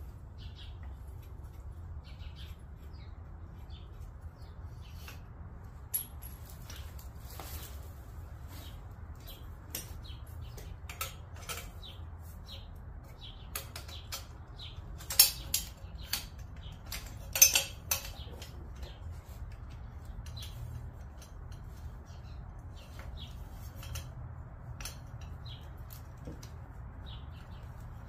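Scattered metallic clinks and knocks of hand tools against motorcycle engine and exhaust parts, with two louder clanks about halfway through, over a steady low hum.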